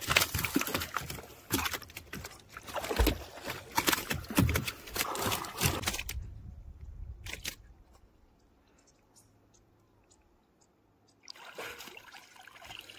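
Water splashing and sloshing close by as a spearfisher moves and dives beside a small boat, with many sharp little splashes. About six seconds in it drops off suddenly to a faint hush, and splashing picks up again near the end as he comes back up with a speared fish.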